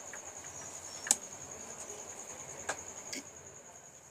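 A cricket trilling steadily at a high pitch, with a few sharp clicks scattered over it, the loudest about a second in.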